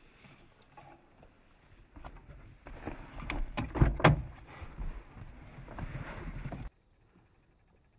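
Rustling and knocking of someone moving about inside a car, with several sharp knocks near the middle, cut off abruptly near the end.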